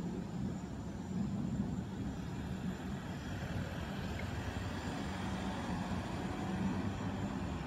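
Distant thunder rolling in a long, low rumble that swells and eases.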